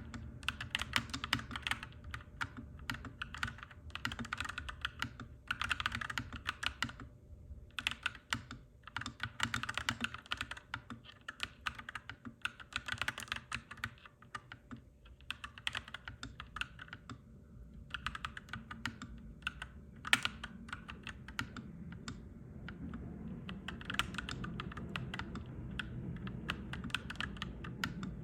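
Clacky mechanical keyboard being typed on, in fast runs of keystrokes broken by short pauses. A low background rumble underneath grows louder over the last several seconds.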